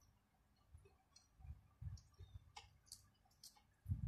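Faint eating sounds at a meal: scattered light clicks of a spoon and utensils against a plate, with a few soft low thumps, the loudest near the end.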